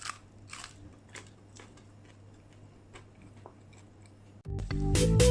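Crunchy bites and chewing of crispy fried vegetable fritters, a crackly crunch every half second or so. Music comes in suddenly near the end.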